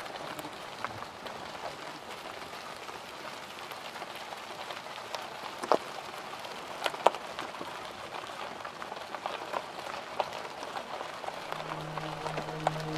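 Steady, rain-like hiss dotted with scattered sharp ticks. A low held musical note with overtones comes in near the end.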